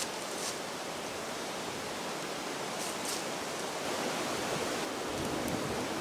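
Steady hiss of wind in bare woods, with a couple of faint crunches of dry leaves underfoot, about half a second in and again around three seconds in.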